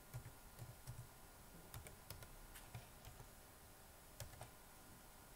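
Faint keystrokes on a computer keyboard, a scattered run of light clicks as a password is typed.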